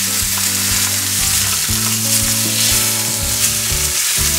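Beef steaks sizzling steadily as they sear in a stainless-steel frying pan preheated to searing temperature.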